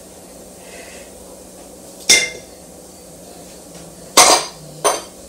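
Metal kitchen utensils knocking against a stainless steel mixing bowl: three sharp clanks that ring briefly, about two seconds in and then twice near the end.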